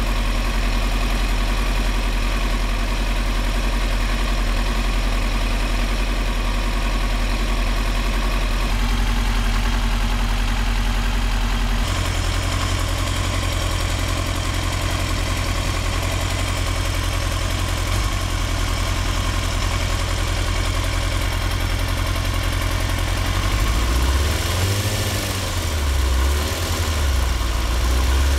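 2003 Yamaha R6 inline-four sport-bike engine idling roughly through a Yoshimura exhaust, with a lumpy, V-twin-like beat. About twelve seconds in the idle speed steps up by itself, and near the end the revs rise and fall a couple of times. The rough running and wandering idle were traced to failing ignition coils.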